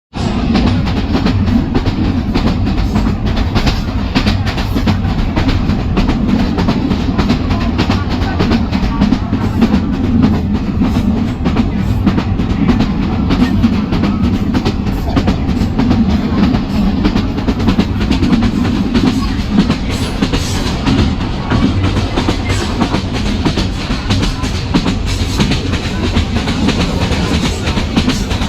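Kishoreganj Express train running on the rails: a steady rumble with dense, continuous clatter of wheels over the track.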